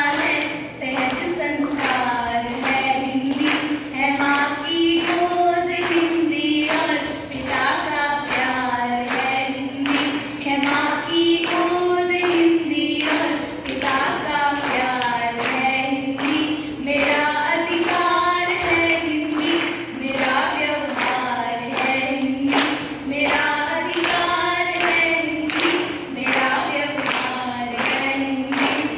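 Two girls singing a Hindi poem together into microphones, a slow melody with long held, wavering notes. Behind the voices runs a steady beat of sharp claps, about two a second.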